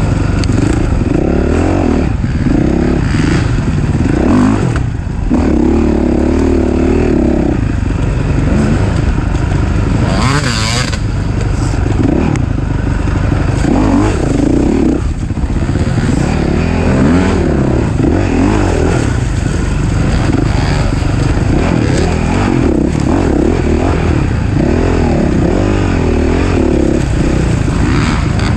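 Off-road racing engine running hard under constant throttle changes, its pitch rising and falling as the rider accelerates and backs off, with brief lifts of the throttle about five and fifteen seconds in.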